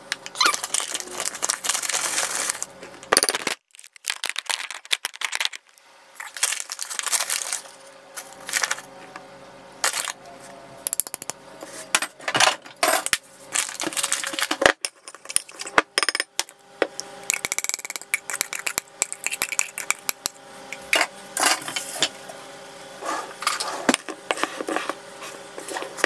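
Measuring cups and spoons clinking and tapping against a glass mixing bowl while flour and baking powder are scooped in: a run of short clinks and scrapes, broken by a brief quiet gap a few seconds in. A faint steady hum runs underneath for most of it.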